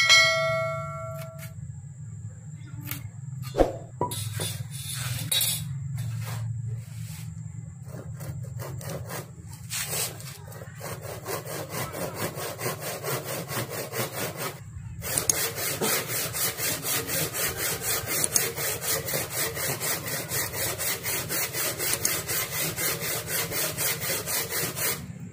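Hand saw cutting through a wooden block in steady back-and-forth strokes, about two a second, starting about ten seconds in and getting stronger and more regular a few seconds later. Before that, light scratches and taps of pencil marking along a steel square.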